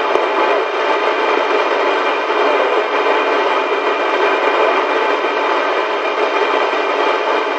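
Steady hiss of radio static from a receiver's speaker, with one sharp click just after the start.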